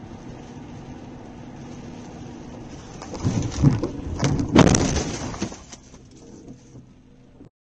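Car collision heard from inside the car: steady road noise, then about three seconds in a rising rush of noise and a loud impact, the loudest moment, around four and a half seconds, fading away over the next second.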